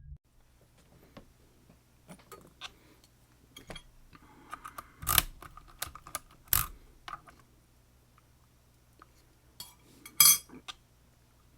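Small metallic clicks and clinks from a lock and metal picking tools being handled, with louder metal knocks about five, six and a half and ten seconds in.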